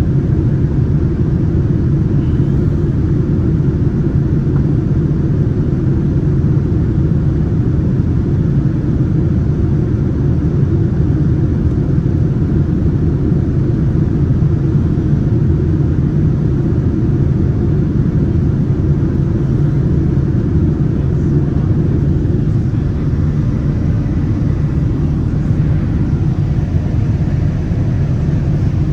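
Steady low rumble inside the cabin of a Boeing 787 Dreamliner in flight: the jet engines and rushing air, even and unchanging throughout.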